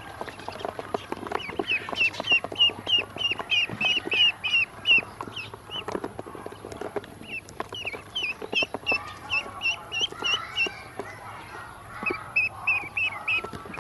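Ducklings peeping in quick runs of short, high chirps, about four or five a second, with brief pauses between runs. Under the chirps are irregular sharp taps of bills pecking feed from a plastic basin.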